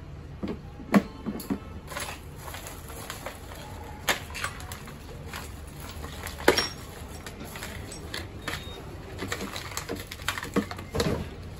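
Scattered clicks and knocks of hard plastic parts on a children's electric motorbike being handled during assembly, with a quicker run of clicks and plastic-bag rustling near the end.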